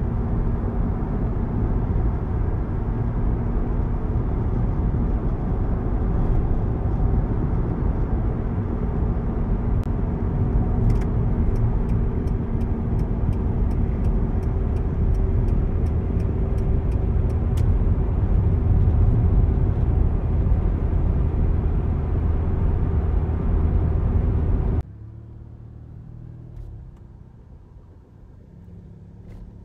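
Steady road and engine noise inside a car's cabin at highway speed, a low, even rumble. Midway, a run of light, regular ticks, about two a second, lasts several seconds. Near the end the noise drops suddenly to a much quieter, low car rumble.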